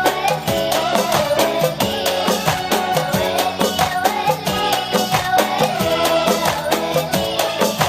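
Arabic song: a girl's voice singing a melody over music with a fast, steady drum beat.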